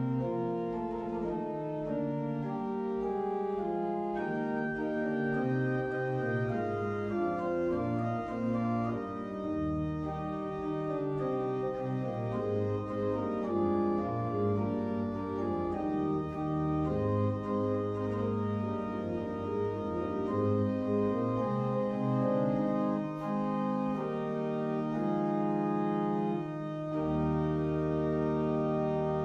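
Organ music: slow, held chords that change every second or two over low bass notes, with a deeper bass note coming in near the end. It is the service's opening prelude.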